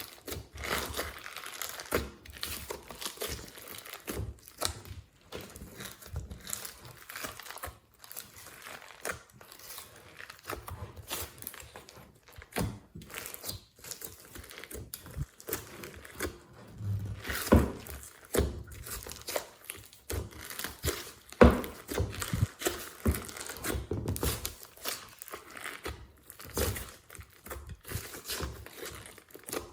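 Slime being squished, stretched and pressed by hand, giving a steady run of small crackles and clicks with a few louder snaps, the loudest about 21 seconds in.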